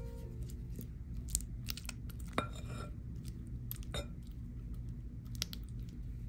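Silicone spatula mashing and smearing softened butter in a glass mixing bowl: soft squishing with scattered clicks and scrapes of the spatula against the glass.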